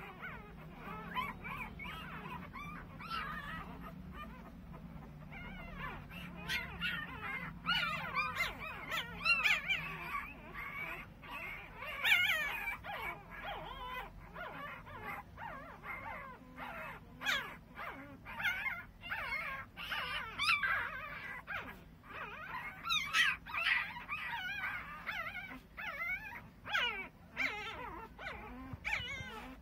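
Litter of 13-day-old mastador puppies whimpering and squeaking: many short, wavering, high-pitched cries that overlap, growing busier after the first few seconds.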